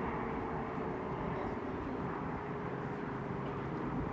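Steady low outdoor rumble with a faint hum that fades out about three seconds in.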